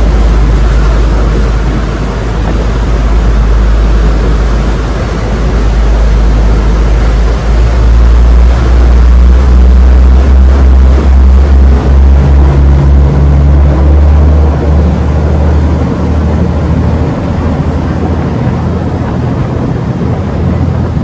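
Passenger ferry's diesel engine running with a deep, loud rumble that swells about eight seconds in and eases off after about fifteen seconds.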